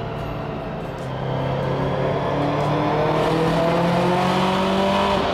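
Built Subaru STI flat-four with a large turbo, driven on a dyno, its revs rising slowly and smoothly and getting louder from about a second in: a steady, part-throttle roll into boost that shows the speed-density tune is smooth.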